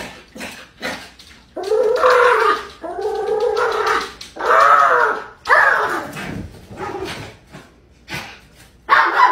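Small white dog whining in a string of drawn-out, wavering cries, each about a second long, the fourth one falling in pitch, with shorter cries near the end.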